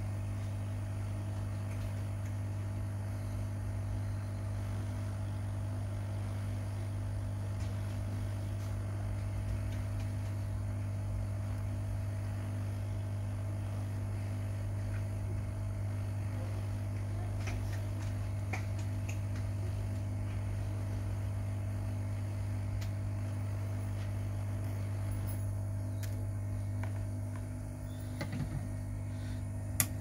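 Hot air rework gun blowing steadily on a phone charging-port board, heating the solder to lift the old connector off. The sound drops slightly near the end, and there is one sharp click at the very end.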